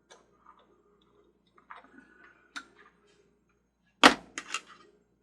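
Light clicks and handling noises from small parts, with one sharp click about four seconds in and two softer clicks right after. These fit a fuse being swapped out of the carousel's fuse holder.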